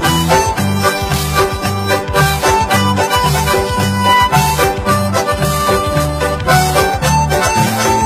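Background music: an instrumental tune with sustained melody notes over a rhythmic bass line.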